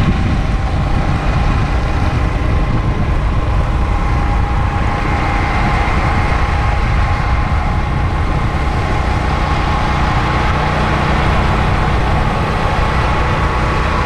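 Steady, loud running noise of a vehicle travelling along a highway: engine and wind noise together, with a faint steady whine over it.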